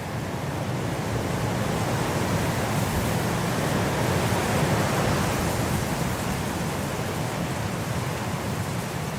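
Wind blowing steadily, a broad rushing noise that swells to a gust about halfway through and then eases back.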